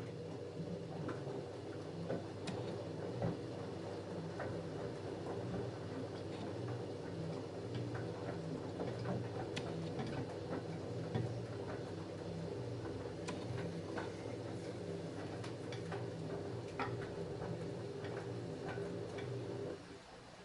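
LG F10A8HDS5 front-loading washing machine's drum turning a wet load of jeans in the wash phase: a steady motor hum with scattered irregular clicks, starting suddenly and stopping suddenly near the end.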